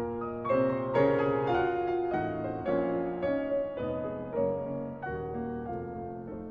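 Two grand pianos playing a Romantic classical duo in a flowing passage of quick, interlocking figures. It swells to a louder peak about a second in, then gradually softens toward the end.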